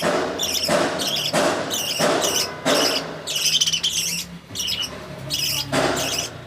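Budgerigars chirping in quick repeated bursts, with several harsh, raspy squawks about a second apart early on and one more near the end: budgie chick begging calls during feeding.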